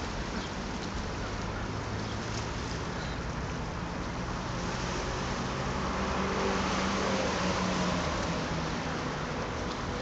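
Steady outdoor background noise with no distinct events, swelling slightly between about six and eight seconds in.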